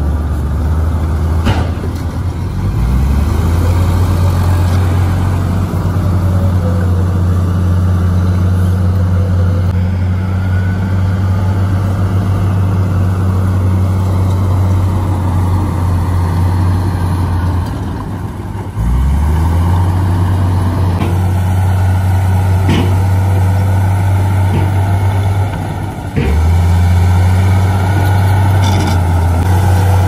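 Heavy diesel engine running with a steady low drone as a dump truck tips its bed to unload dirt, with a few sharp knocks. The drone breaks off briefly about two-thirds of the way in and again near the end, then resumes.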